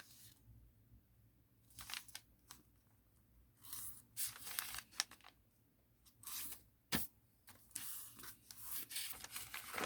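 A sheet of origami paper being folded and creased by hand: irregular short rustles and crinkles, with one sharp crack about seven seconds in and busier rustling near the end.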